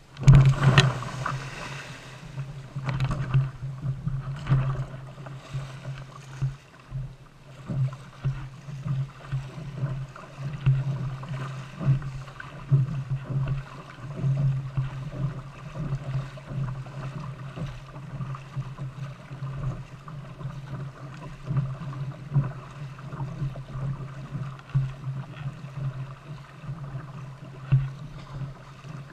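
Surf washing and splashing around a sit-on-top kayak as it is pushed out through the shore break, loudest in the first two seconds. Then water sloshing against the plastic hull in a rough rhythm of paddle strokes, roughly one every second or two.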